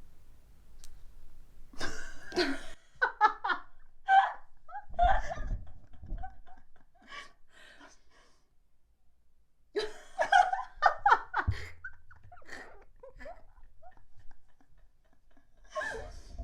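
A person laughing in bursts, about two seconds in and again near ten seconds, with a couple of low thumps.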